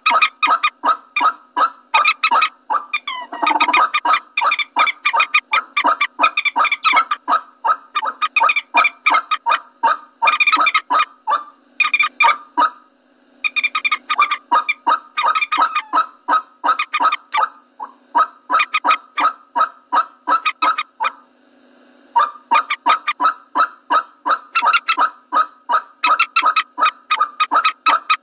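Common moorhen calls from a bird-lure recording: a long, steady run of short, honking clucks, about three or four a second, pausing briefly twice.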